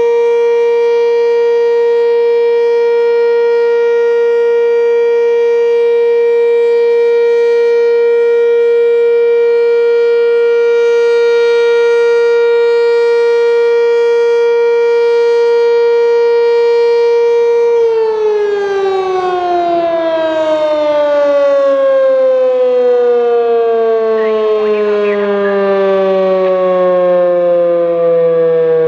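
Sentry 10V outdoor warning siren sounding a steady tone, then winding down about 18 seconds in, its pitch sliding slowly lower.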